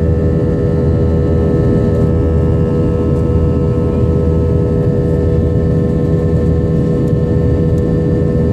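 Airliner engines droning steadily, heard from inside the passenger cabin during the climb after takeoff: a constant low rumble with a steady hum of several pitches, unchanging throughout.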